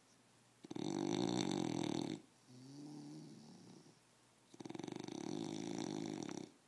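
English bulldog snoring in its sleep: two loud, rattling snores of about two seconds each, with a quieter breath between them.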